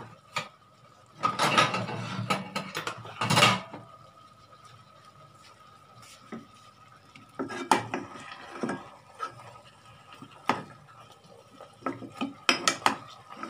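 Steel spoon scraping and clinking against a cooking pot as okra is stirred into a curry. A stretch of scraping comes in the first few seconds, then scattered light knocks and clinks.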